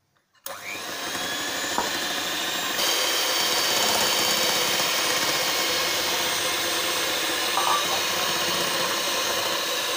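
Electric hand mixer switched on about half a second in, its motor running steadily as the beaters mix flour into cake batter. The sound gets louder and brighter about three seconds in.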